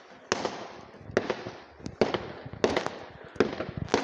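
New Year fireworks going off all around: about ten sharp bangs at uneven intervals, some in quick clusters, each trailing off in an echo.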